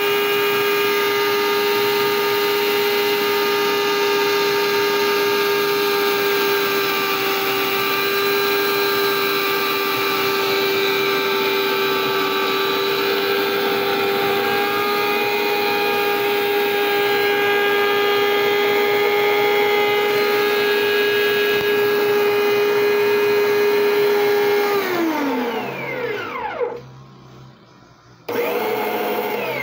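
Electric meat grinder motor running with a steady whine while grinding fermented fireweed (ivan-chai) leaves. About 25 seconds in it is switched off and winds down with falling pitch; near the end it runs again briefly and winds down once more.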